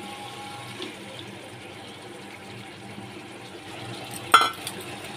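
Wet poppy-seed paste pouring from a steel bowl into a wok of frying spice paste, a steady wet hiss. About four seconds in, a metal spatula strikes the wok once with a sharp clank.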